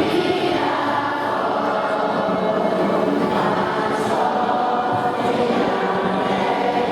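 A large group of schoolchildren singing together in unison, holding long notes with no break.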